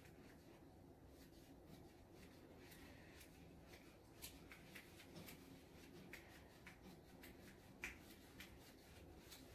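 Faint scratching of a paintbrush worked against a canvas: short, irregular strokes as wet paint is blended, over quiet room tone.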